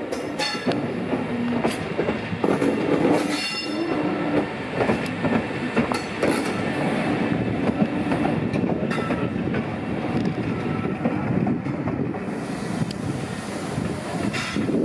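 SNCF CC 6500 electric locomotive running light past at low speed: a steady rumble of wheels on rail with repeated clicks over rail joints and points. There is a little wheel squeal in the first few seconds.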